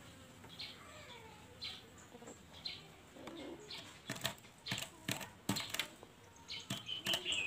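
A caged ringneck dove pecking seed from a plastic feed cup and shifting on its perch: sharp taps and clicks, few at first and coming thickly in the second half.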